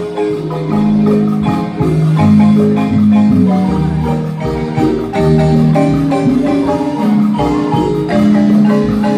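Guatemalan marimba ensemble playing a tune: melody notes held by quick repeated mallet strokes over changing bass notes.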